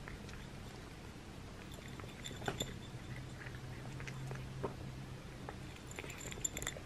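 A cat eating dry kibble from a small ceramic dish: faint mouth and lapping sounds with scattered sharp clicks of the pieces against the dish, the loudest about two and a half seconds in and near the end. There is little crunching: the cat gulps the kibble whole instead of chewing it.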